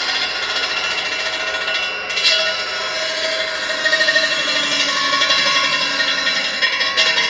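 16-inch DeWalt radial arm saw running: motor and blade giving a loud, steady whine, with a brief dip and change about two seconds in.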